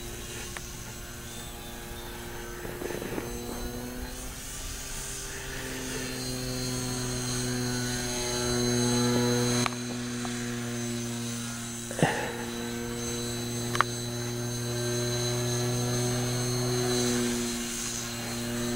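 Motor and propeller of a radio-controlled model biplane flying overhead: a steady buzzing drone with a faint high whine, swelling and easing a little and wavering slightly in pitch. Two sharp clicks come in the second half.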